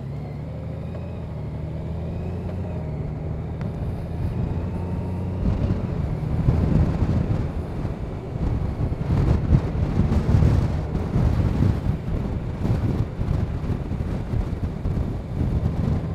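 Honda Gold Wing's flat-six engine pulling away at low speed with a steady hum that slowly rises. About five seconds in, gusty wind buffeting the microphone comes in and dominates as the bike picks up speed.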